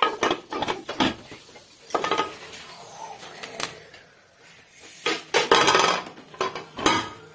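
Irregular metallic knocks and clatter from an aluminium pressure-cooker pot and lid, with a dense run of clatter about five seconds in.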